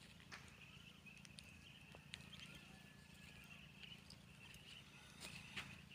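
Near silence: faint outdoor ambience with a steady high-pitched hum and a few scattered light clicks.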